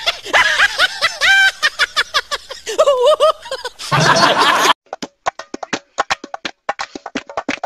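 Loud, high-pitched laughter in repeated ha-ha bursts that stops abruptly about four and a half seconds in. It is followed by a quick, uneven series of sharp clicks or taps.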